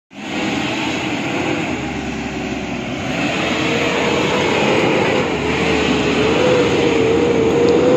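A log-laden BharatBenz 1214 truck's diesel engine labouring on a rough dirt track, a steady drone with a wavering whine that grows slightly louder as the truck comes closer.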